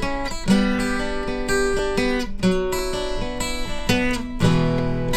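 Acoustic guitar strumming chords in an instrumental passage of a pop-rock song, changing chord every second or two.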